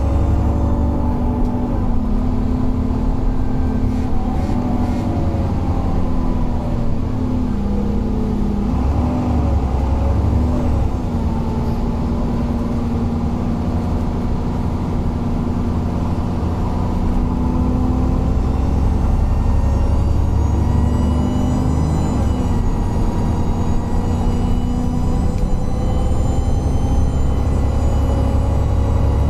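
Alexander Dennis Enviro 400 double-decker bus running and pulling away. Its engine note falls and rises several times as it works through its gears, with a thin high wheezing whine over the engine.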